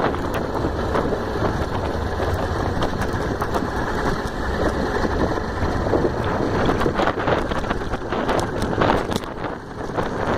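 A motorcycle riding along, its engine running under heavy wind noise on the microphone, with frequent short knocks and rattles as it goes over the rough, broken road surface.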